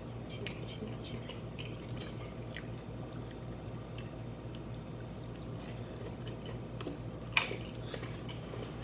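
Chewing and crunching of nachos (tortilla chips): scattered soft crunches, with one sharper crunch about seven seconds in, over a steady low hum.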